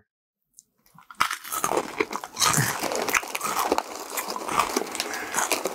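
Crunching and chewing of a Doritos 3D Crunch Three Cheese chip. It starts about a second in and runs as a dense string of crisp crackles.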